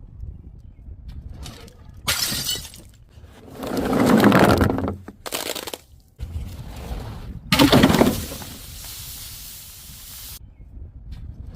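Glass bottles breaking and shattering, several separate breaks in a row with the crunch and clink of shards; the loudest come about four and eight seconds in.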